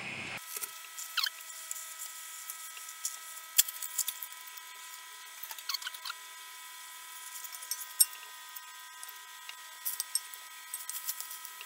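Scattered crackles and pops from an octopus simmering in its own juices and wine in a stainless steel pot, with sharper clicks of a spatula against the pot, over a steady high whine.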